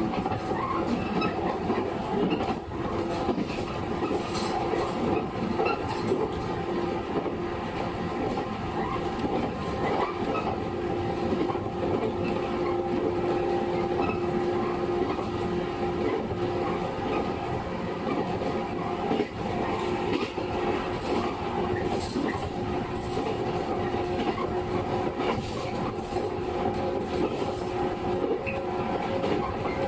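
JR 115 series (6000 subseries) resistor-controlled electric multiple unit running along the line, heard from inside the car: a steady motor and running hum with rail-joint clacks now and then.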